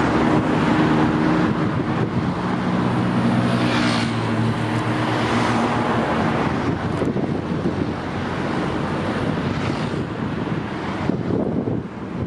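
Wind on the microphone over a steady outdoor rumble, with a low engine hum that fades out after about five seconds.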